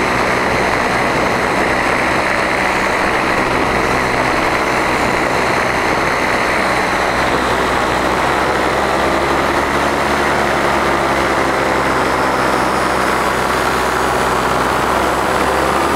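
Powered paraglider's paramotor engine and propeller running steadily at a constant pitch, heard close up from the aircraft in flight.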